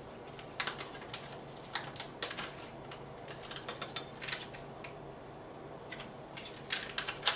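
Plastic protein-powder packet crinkling and being tapped and shaken to empty the last powder into a blender cup: irregular short crisp rustles and taps.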